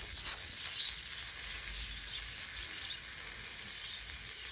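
A folded tortilla wrap with ground beef, cheddar and lettuce frying in a nonstick pan, sizzling as a steady hiss with small crackles.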